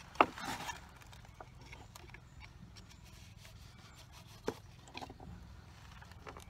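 Small knife scraping and cutting oyster mushrooms from the bark of a sweet gum log, heard as quiet scrapes and a few light clicks. A single sharp knock near the start is the loudest sound.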